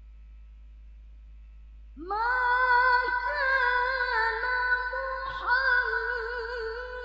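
A woman's voice reciting the Qur'an in the melodic tilawah style through a microphone, coming in about two seconds in on a long, high held note with wavering ornaments. Before it only a faint low hum.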